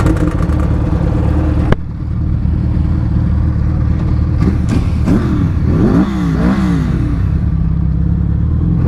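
Suzuki Hayabusa's inline-four engine idling steadily, joined by a sharp click a little under two seconds in. From about halfway through there is a run of quick throttle blips, the pitch rising and falling several times.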